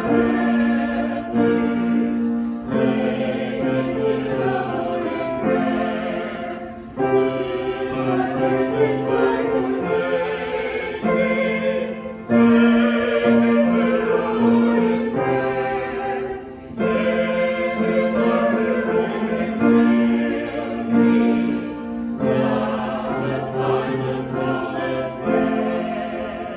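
A choir singing a slow hymn or anthem in long held phrases, fading out near the end.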